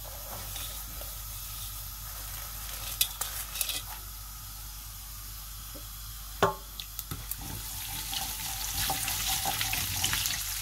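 Cumin and mustard seeds sizzling in hot oil in a frying pan, with a few sharp pops. From about eight seconds in the crackling gets denser as the mustard seeds begin to splutter, the sign that the oil is hot enough for the tempering. Near the end a wooden spoon stirs them.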